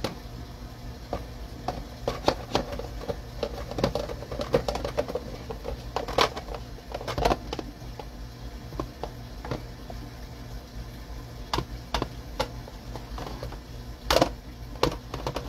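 Air fryer basket being tipped and shaken against a plastic container as BBQ-sauced little smokies tumble out: a run of irregular clicks and knocks, with busier clusters about two to five seconds in, around six to seven seconds, and again near the end.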